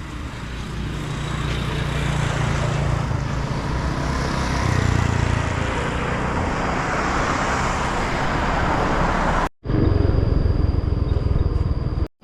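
Motor scooter running on the road, its engine rumble mixed with rushing wind and road noise. The sound cuts off abruptly twice near the end.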